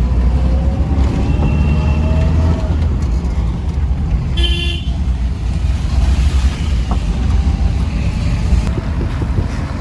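Car on the move, its engine and road noise making a steady low rumble, with one short horn toot about four and a half seconds in.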